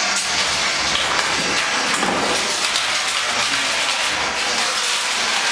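Electric heavy roller for tennis courts running, its motor driving the heavy drum across a tiled floor: a steady, even rushing noise.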